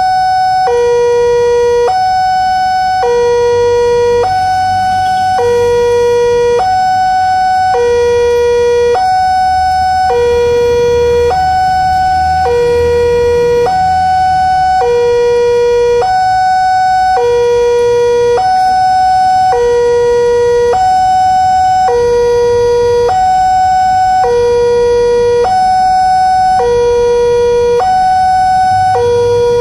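Railroad level-crossing warning alarm sounding with the barrier down: an electronic two-tone chime, low and high notes alternating steadily about every three quarters of a second. A low rumble sits beneath it for several seconds in the first half.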